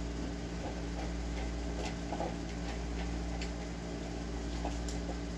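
Room tone: a steady low hum, with a few faint, irregular ticks scattered through it.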